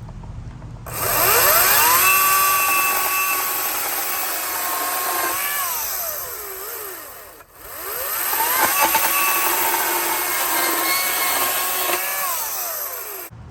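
Ryobi 40V HP brushless battery chainsaw run twice while cutting a 2x6 board. Each time the motor and chain spin up with a rising whine, hold a steady high whine through the cut, then wind down with a falling pitch.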